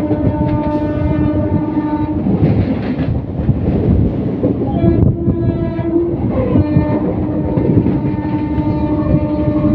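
Train horn sounding over the running noise of a moving train. One blast ends about two seconds in, a short blast at a slightly higher pitch comes about five seconds in, and a long blast starts past the middle and is still going at the end.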